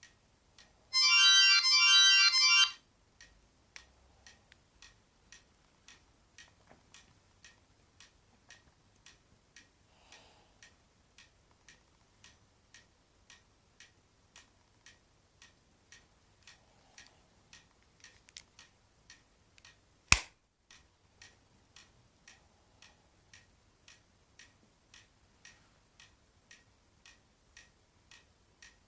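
An O2 X2 mobile phone plays a short electronic ringtone melody for about two seconds, then it stops. After that there is faint, steady ticking at about two ticks a second, broken once by a single sharp click about twenty seconds in.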